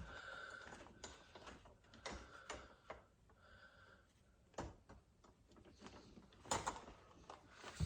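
Faint, scattered clicks and knocks with light rustling as a Halloween animatronic figure's plastic arm and cloth shirt are handled during assembly.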